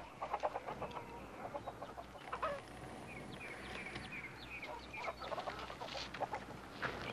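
Chickens clucking faintly, with a quick run of short clucks in the middle.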